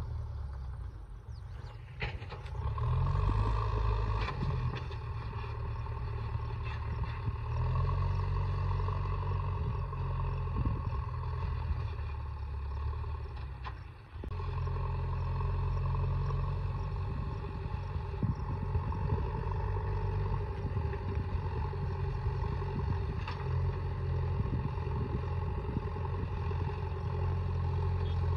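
A heavy diesel engine running steadily, with a brief drop in level about fourteen seconds in.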